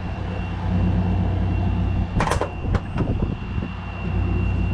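Window air conditioner running with a steady low hum. About two seconds in, a loud sharp clack, then a few lighter clicks over the next second.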